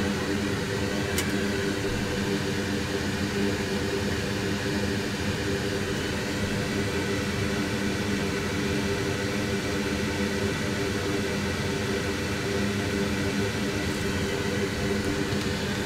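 Steady electric fan whir with a low hum, running without change, and a faint click about a second in.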